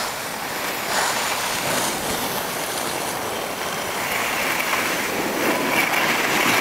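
Steady rushing noise of skiing downhill: skis sliding over packed snow with wind on the microphone, growing a little louder about four seconds in.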